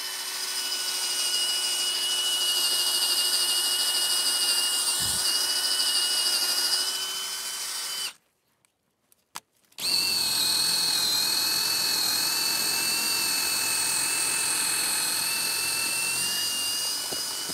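Cordless drill boring into a weathered wooden post, running at a steady whine. It cuts out about eight seconds in and starts again under two seconds later, its whine a little higher.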